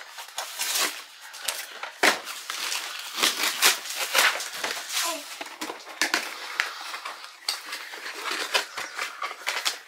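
Cardboard box being handled and pulled open by hand: an irregular run of crackles, taps and scrapes of cardboard.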